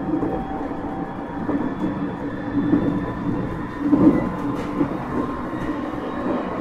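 JR East 701 series 1000 subseries electric multiple unit running on the rails: a steady rumble with faint whining tones, and a few sharp clicks, the loudest about four seconds in.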